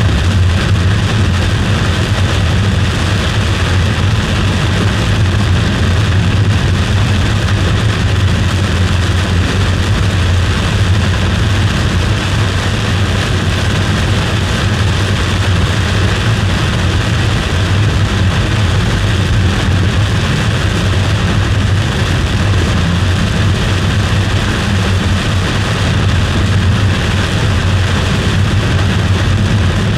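A car driving, with steady engine and road noise.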